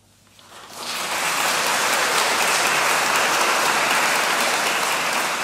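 Audience applauding. It starts in near silence, swells over about the first second, then holds steady and full.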